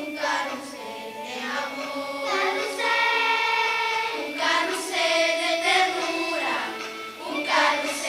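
A children's choir singing, in long held notes with short breaks between phrases.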